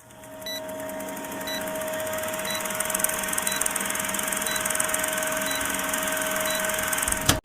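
A small electric motor running steadily with a hiss and a steady hum, fading in over the first second and stopping abruptly near the end.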